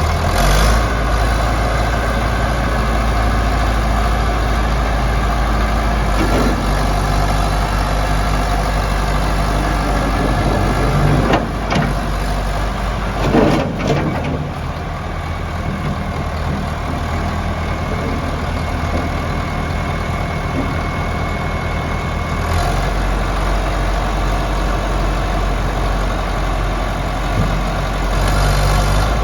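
Diesel engine of a Caterpillar 930 wheel loader running steadily, its note shifting about eleven seconds in and again about twenty-two seconds in.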